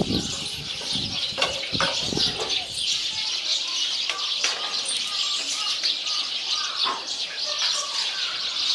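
Steady, dense chirping of many small birds, with short chirps scattered through it. A few soft low knocks in the first couple of seconds.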